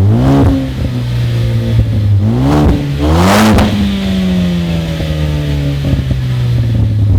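Ford Focus ST's turbocharged four-cylinder engine, breathing through a Remus aftermarket exhaust, revved up three times in quick succession. The third rev, about three seconds in, goes highest and loudest, and the revs then fall slowly back toward idle.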